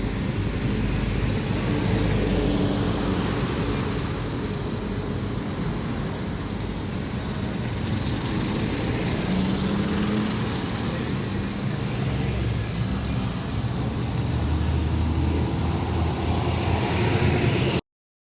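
Jet engines of an Airbus A330-200 airliner, a steady rumble with a wavering low hum, until the sound cuts off abruptly near the end.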